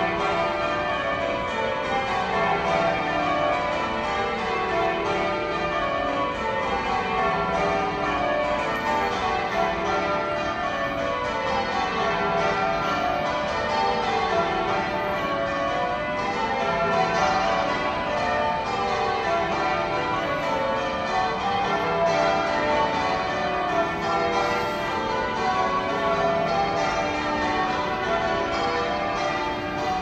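Manchester Cathedral's church bells being change-rung: a continuous stream of bell strikes, each row stepping down in pitch from the highest bell to the lowest, over and over.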